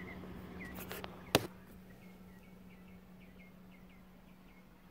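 A car door shutting with one sharp thump about a second and a half in, after which the outside noise drops. A small bird chirps in short repeated notes throughout, over a steady low hum.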